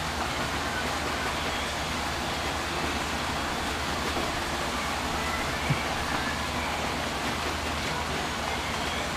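Steady, even background hiss with a low hum underneath, and one brief soft knock a little over halfway through.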